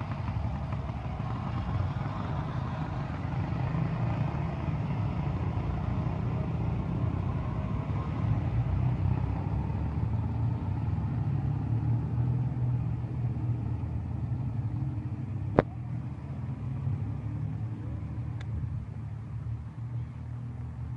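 Several WWII-era German military flat-twin motorcycles, sidecar rigs among them, running as they ride off across cobblestones, a steady low engine rumble that eases near the end. A single sharp crack stands out a little over two-thirds of the way through.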